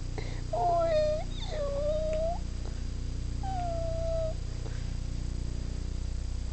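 Calico cat giving three drawn-out meows in the first four seconds or so, each held at a fairly steady pitch.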